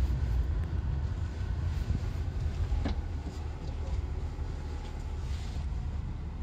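Low, steady rumble of a BMW X5 being driven over a rough dirt track, heard from inside the cabin: tyre and drivetrain noise, with a brief sharp click about three seconds in.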